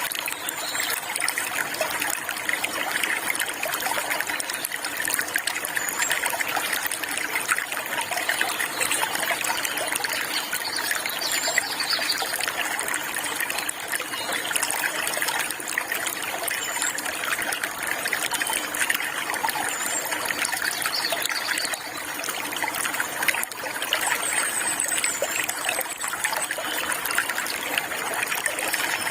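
Water trickling and flowing steadily, with a few short, high bird chirps now and then.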